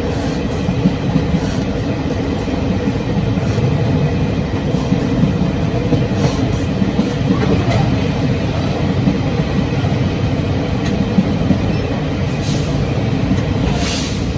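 Running noise at the gangway between coaches of a locomotive-hauled Chu-Kuang Express train in motion: a loud, steady low rumble of wheels on rails and the rattling connection. A couple of sharp clicks come near the end.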